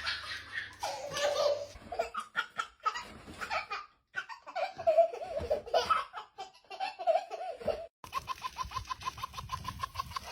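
High-pitched laughter, like a young child's or baby's, in several short bursts that cut off abruptly twice.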